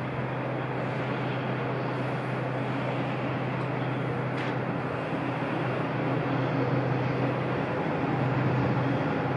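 Distant DF200 diesel-electric freight locomotive approaching with a steady low engine drone that grows gradually louder, over a constant wash of city noise.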